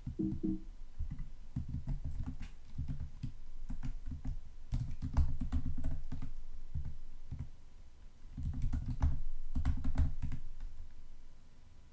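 Typing on a computer keyboard: quick runs of key clicks with dull thuds, with a brief pause about eight seconds in.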